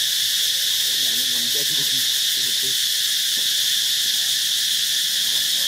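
Steady, high-pitched insect chorus droning without a break, with faint human voices talking in the background about a second in.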